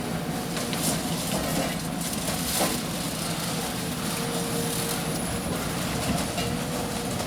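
Demolition machine's engine running steadily, with scattered cracks and crunches of building material being broken.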